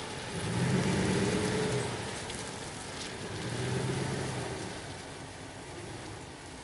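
Lifted Dodge Ram 1500 pickup's engine revving up in two swells, about half a second in and again around four seconds in, as the truck drives off over muddy ground; it fades as the truck moves away.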